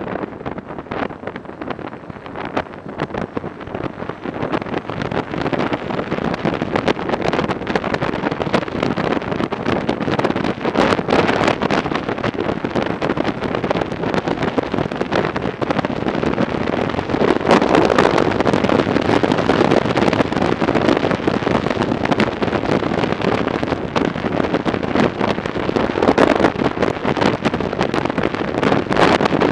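Wind buffeting the microphone of a helmet-mounted camera on a motorcycle at road speed, a steady rush with uneven gusts that grows louder after the first few seconds. The Yamaha XJ900 Diversion's running engine lies under the wind.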